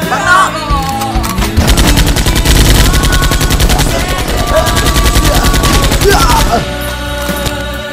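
Rapid machine-gun fire sound effect, starting about a second and a half in and lasting about five seconds, laid over background music.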